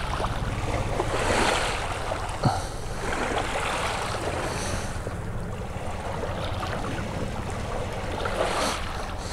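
Steady rushing noise of wind and small lake waves, with a couple of faint clicks.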